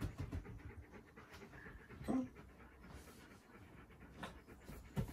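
A malamute panting faintly and steadily.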